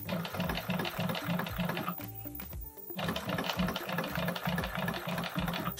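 Juki PLC-2710-7 post bed walking foot sewing machine stitching through a leather label and cap in two runs, with a pause about two seconds in; the needle bar and walking feet tick in an even stitch rhythm while the servo motor stays nearly silent. A sharp click comes at the very end.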